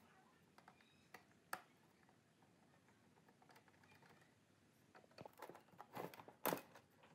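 Faint, scattered clicks and taps of a screwdriver and gloved hands on the plastic and metal casing of an old LG stereo. Near the end there is a louder cluster of knocks and rattles as the top cover is worked loose.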